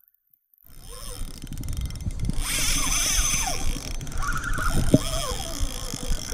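Rumbling handling noise and knocks on a close microphone as the spinning reel and rod are handled, starting after about half a second of silence, with faint rising-and-falling tones over it.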